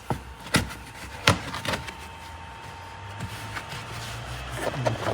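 Plastic trunk trim panels and clips being handled and pushed back into place: a few sharp clicks and knocks in the first two seconds, then fainter ones, over a low steady hum.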